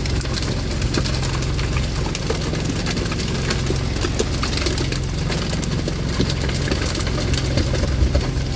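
Fishing boat's engine running steadily with a low hum, with scattered light knocks and clicks over it.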